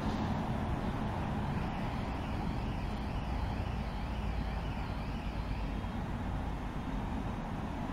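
Steady rumble of distant road traffic. For a few seconds in the middle, a faint warbling tone rises and falls about twice a second.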